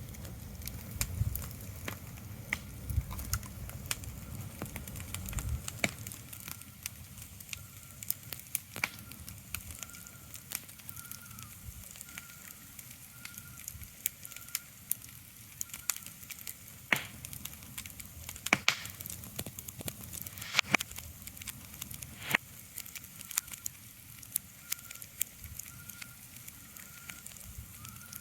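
Irregular crackling with sharp clicks over a soft steady hiss, with a faint high tone pulsing about once a second. A low rumble fades out about five seconds in.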